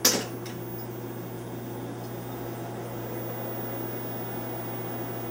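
Sharp click of the power switch being thrown on an RCA TR-70 quadruplex videotape recorder, then a fainter click about half a second later, over a steady low hum.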